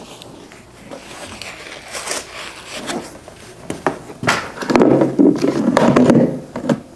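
Handling noise as toy parts and packaging are unpacked on a carpet: scattered light knocks, scrapes and rustles, then a louder, low muffled sound for about a second and a half near the end.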